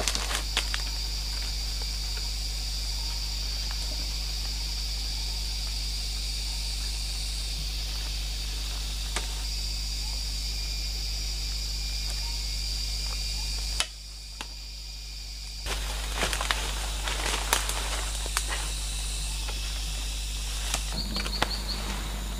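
Forest ambience with a steady high insect drone, broken by scattered light clicks and rustles of sticks, vines and leaves being handled. Everything drops away for about two seconds past the middle, then the clicking comes back busier.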